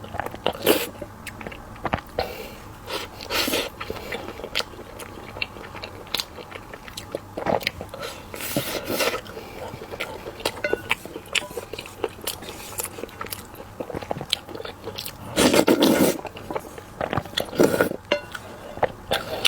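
Close-miked eating sounds: a person biting and chewing food, with many small clicks and several louder bursts scattered throughout.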